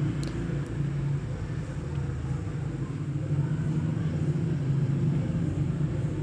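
A steady low machine hum that holds at an even level throughout.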